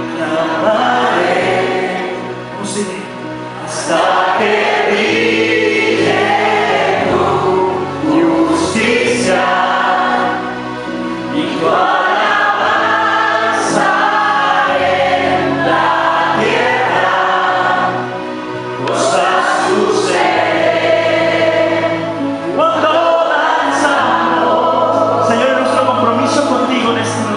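Christian worship music: a group of voices singing a worship song in phrases over held bass and keyboard chords.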